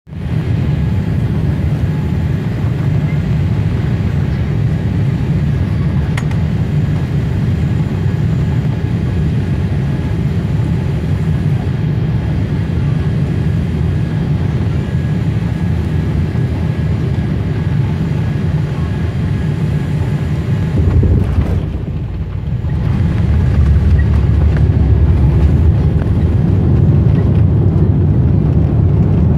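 Cabin noise of a Boeing 787 Dreamliner with Rolls-Royce Trent 1000 engines, heard from a window seat over the wing: a steady low roar on final approach. About two-thirds of the way through the aircraft touches down and a heavier rumble of the wheels on the runway comes in, growing louder a couple of seconds later as it rolls out.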